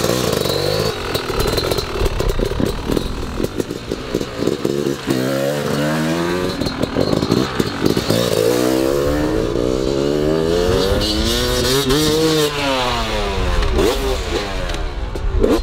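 Two-stroke Yamaha dirt bike engine revving hard as it is ridden: the pitch climbs and drops again and again with the throttle and gear changes, with one long climb to a peak about twelve seconds in before falling away, and a sharp rev again near the end.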